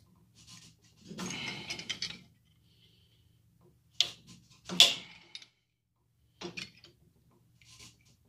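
Metal ski-pole tube rubbing and knocking against the steel jaws of a bench vise as it is set and squeezed to close its slotted end: a scraping rub about a second in, two sharp clicks near four and five seconds, then a few light ticks.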